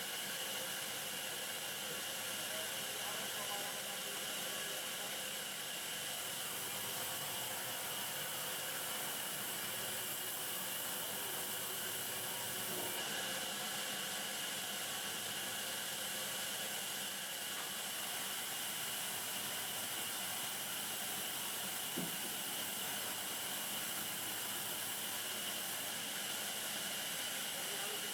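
Steady hiss that holds an even level throughout, with one short click about twenty-two seconds in.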